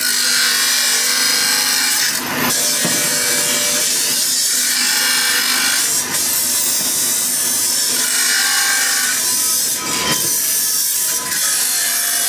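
Cast brass pieces being cleaned against a spinning motor-driven wheel: a loud, steady, hissing grind of metal on the wheel that eases briefly about two, six and ten seconds in as pieces are lifted and put back.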